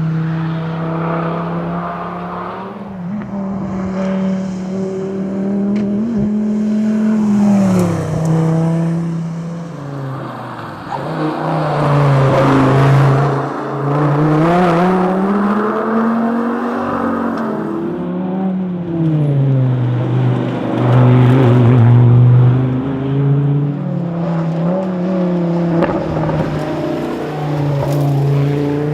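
Dodge Viper ACR's V10 engine driven hard, its note climbing under acceleration and dropping back sharply several times with gear changes and lifts.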